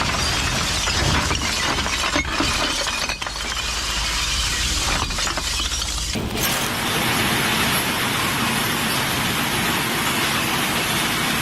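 Glass bottles crashing and shattering together as they are dumped for recycling: a loud, continuous clatter of breaking glass with many sharp clinks. The sound changes character abruptly about six seconds in.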